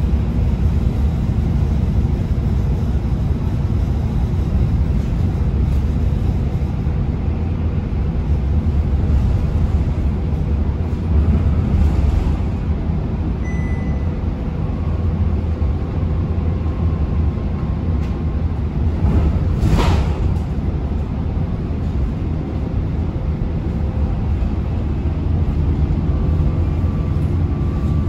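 Volvo B9TL double-decker bus running at cruising speed, heard from inside on the upper deck: a steady low rumble of the six-cylinder diesel engine and road noise. A short rushing hiss stands out about two-thirds of the way through.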